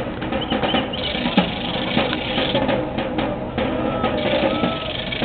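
Music carried by drums and percussion, a busy run of drum hits.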